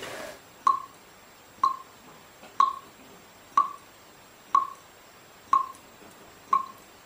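A short click with a brief ping repeats steadily about once a second, seven times, like water drips or a slow ticking.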